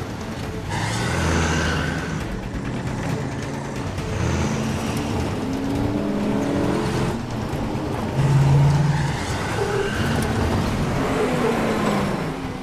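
Engines of a convoy of police cars and an armored SWAT truck speeding along a dirt road, revving and rising in pitch, loudest about eight seconds in.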